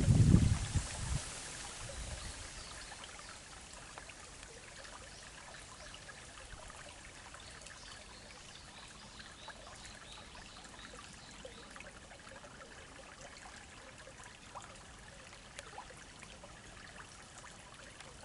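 Faint, steady trickle of water from a small stream, with small scattered ticks, after a brief low rumble in the first second.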